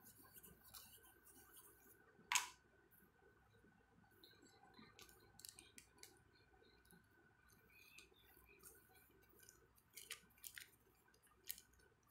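Faint crinkling and ticking of a thin plastic sheet as fingers press and rub it over wet paint on paper, with one louder crinkle about two seconds in.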